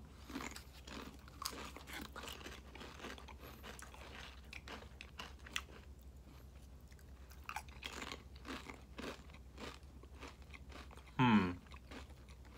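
Pringles potato crisps crunched and chewed close to the microphone: many small, irregular crunches. About eleven seconds in, one of the eaters makes a short hummed voice sound.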